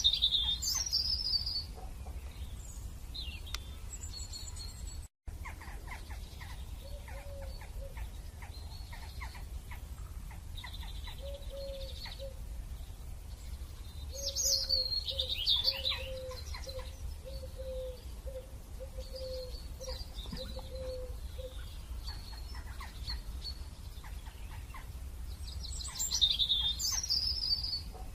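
Songbirds chirping in three bursts of quick high notes, near the start, midway and near the end, with softer calls between. In the middle comes a run of short, low, evenly repeated notes, over a steady low hum.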